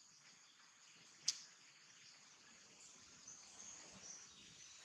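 Faint outdoor ambience: a steady high insect drone, a few high chirps in the second half, and one sharp click about a second in.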